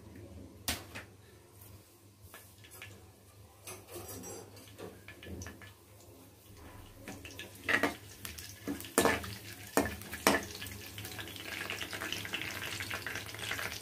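Tempering seeds and fresh curry leaves frying in hot oil in a kadai: scattered sharp pops and clicks over a soft sizzle. The sizzle grows louder near the end as a spatula stirs them.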